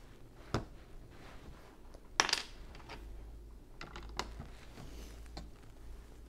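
Lego bricks clicking as they are handled and pressed onto a plastic baseplate by hand. A handful of sharp plastic clicks and taps come at irregular intervals, the loudest cluster about two seconds in.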